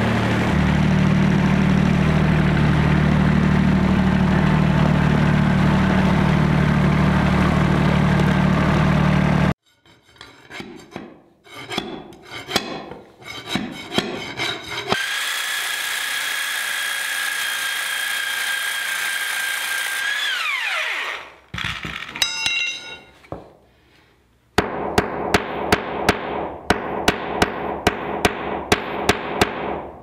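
New Holland compact tractor engine running steadily for about ten seconds, then cut off abruptly. Then a few scattered knocks, and a cordless power tool running with a steady whine that falls in pitch as it winds down. Near the end comes a run of regular sharp knocks, nearly three a second.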